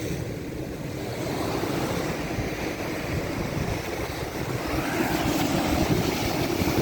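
Ocean waves washing, with wind buffeting the microphone; the surge grows a little louder in the second half.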